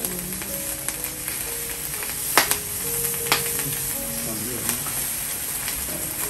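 Food sizzling steadily on a grill plate over a portable tabletop gas stove, with two sharp clicks about two and a half and three and a half seconds in. Background music plays over it.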